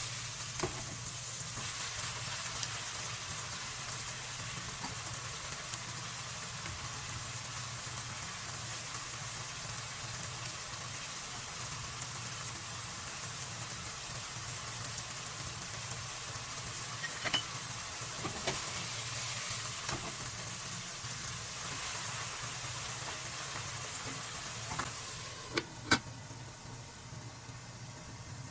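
Food sautéing in oil in a pan with a steady sizzle, stirred with a utensil that gives occasional light clicks against the pan. Near the end there is a sharper knock, and the sizzle turns quieter.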